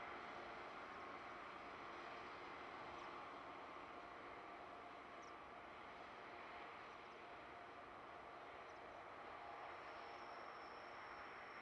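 Faint, distant drone of a Freightliner Class 66 diesel locomotive and its loaded coal hopper train running along the line, slowly fading as it draws away. A few brief bird chirps, and a steady high insect-like tone comes in near the end.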